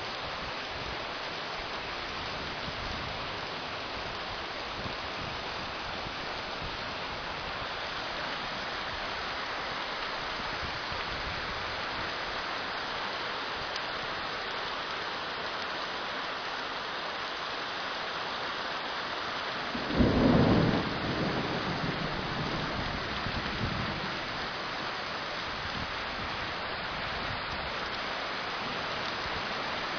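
Steady rain falling. About two-thirds of the way through, a sudden loud thunderclap rumbles away over a few seconds.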